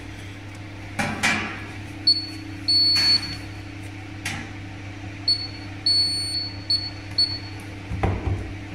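Electronic beeps from a card payment terminal: a short beep, a longer one, then a run of short beeps. A few knocks and a steady low electrical hum sit underneath.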